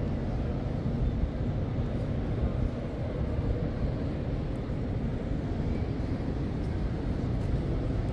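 Steady low rumble of background room noise in a large prayer hall, with no distinct events.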